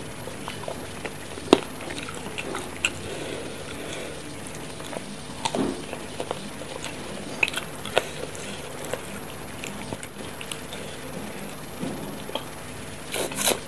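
Close-miked eating sounds of spicy chicken feet being chewed and sucked: scattered wet mouth clicks and smacks, with a louder burst of slurping or biting near the end.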